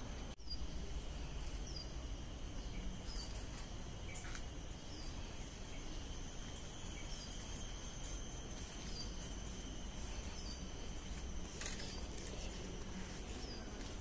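Outdoor garden ambience: a steady high-pitched insect drone, with a short, high, falling chirp repeating about once a second over a low rumble.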